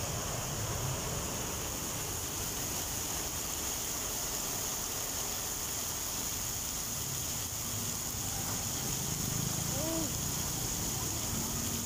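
Heavy rain pouring down, a steady even hiss of rainfall on the wet road, with a low rumble of traffic underneath.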